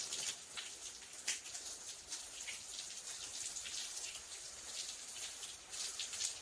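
Water from a garden hose spattering onto stacked shiitake mushroom logs: a steady splashing hiss with many small irregular drips and splats.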